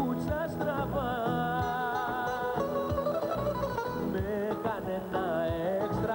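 A male vocalist sings a Greek popular song live, accompanied by strummed and plucked acoustic guitars and a bouzouki. The melody is held and wavering, over a steady accompaniment.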